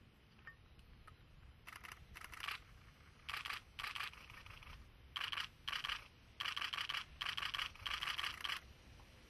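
Camera shutters firing in continuous-shooting bursts: about ten short runs of rapid clicks, mostly in pairs, starting about two seconds in and stopping shortly before the end.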